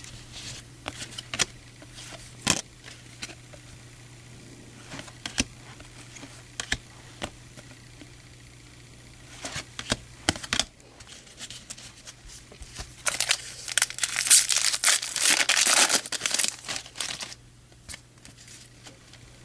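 Trading cards handled with scattered light clicks and snaps, then, about two-thirds of the way in, a baseball card pack's foil wrapper crinkled and torn open for several seconds.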